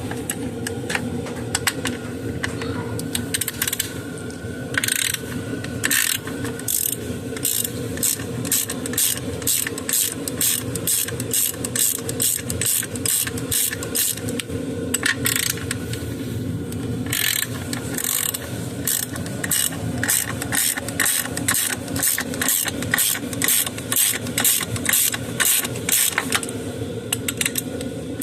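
Ratchet wrench with a 13 mm socket clicking in quick runs as bolts on a V6 engine are worked loose, with short pauses between runs, over a steady low hum.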